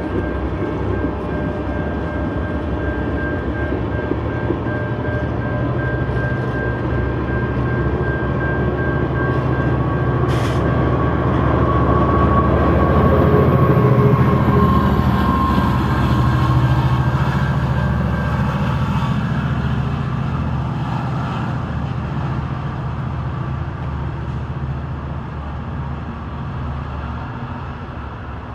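NC Piedmont passenger train rolling past on curved track: a steady heavy rumble of coach wheels on the rails, with a thin high squeal over it. The sound swells about halfway through and then slowly fades as the train moves away.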